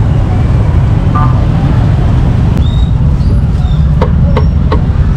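Cleaver chopping roast meat on a round wooden chopping board: four quick chops, about three a second, starting about four seconds in. Under it a loud, steady low rumble.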